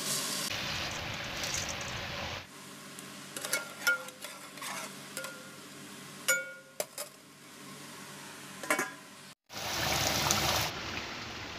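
Rice poured into an aluminium pot with a rushing, splashing noise. It is followed by several sharp metallic clinks of a spoon against the pot, some of them ringing briefly. After a sudden cut, a louder steady hiss of cooking starts near the end.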